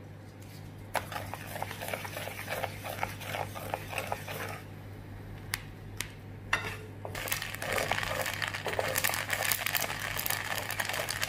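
Mustard seeds crackling and popping in hot sesame oil in a pan, the tempering for the pickle. Scattered single pops at first, thickening into a dense crackle about seven seconds in. The oil is at the moderate heat the cook wants, so the seeds splutter slowly.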